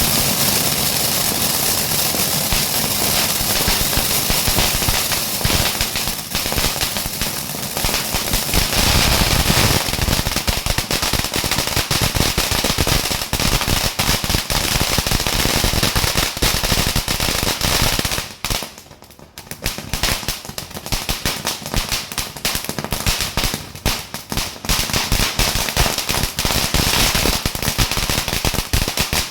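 Firecrackers going off in a rapid, continuous rattle of bangs. About eighteen seconds in they break off for a moment, then carry on as a more scattered run of bangs.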